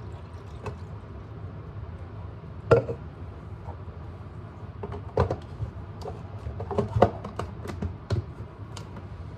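Scattered light knocks and clicks of kitchen items being handled and set down on a counter, over a steady low hum. There are about half a dozen sharp taps, with most of them bunched in the second half.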